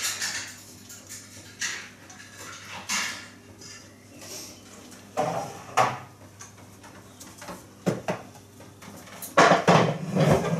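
Scattered knocks and clatters of a wooden dining chair being fetched and moved. The loudest come near the end, as the chair is picked up and carried.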